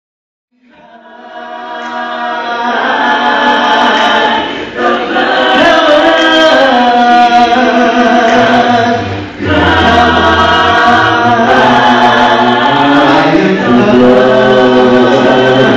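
A cappella gospel vocal group, men and women, singing held chords in harmony, fading in over the first couple of seconds. A low bass part comes in about halfway through.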